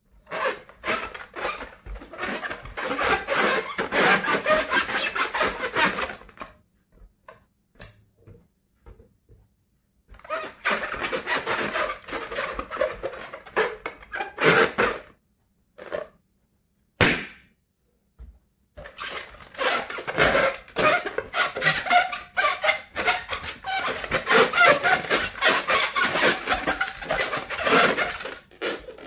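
Rubber balloon being rubbed and squeezed by hand, a dense, rapid crackling in three long stretches, with a single sharp snap about 17 seconds in.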